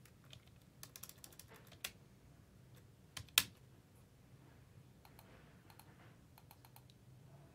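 Typing on a computer keyboard: scattered, faint key clicks, with one louder click about three and a half seconds in.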